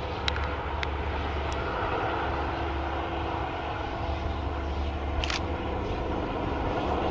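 Distant XPT diesel passenger train running, a steady engine drone with a low hum. A few sharp ticks near the start and one about five seconds in.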